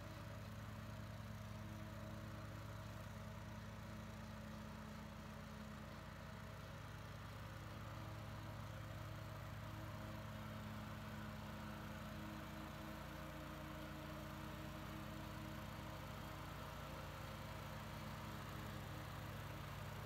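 Exmark zero-turn riding mower with a rear grass bagger running steadily while cutting tall grass, its engine giving a steady hum that grows slightly louder about eight seconds in.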